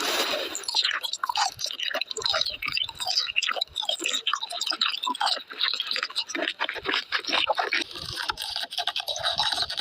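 Close-miked ASMR eating sounds: chewing and crunching, with a dense run of quick crackles.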